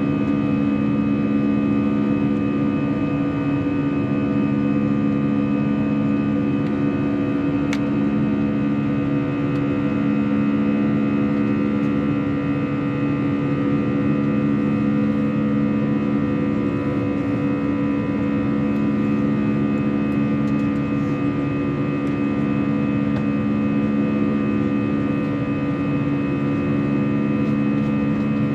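Inside the cabin of an Airbus A321 in the climb: the steady drone of its jet engines, with a hum of several steady tones over the rushing air. A single faint click about eight seconds in.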